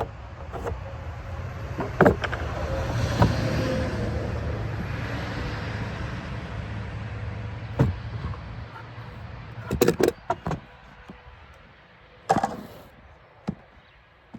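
A low engine rumble that swells over the first few seconds and fades away by about eleven seconds in, with a few sharp knocks and clicks along the way.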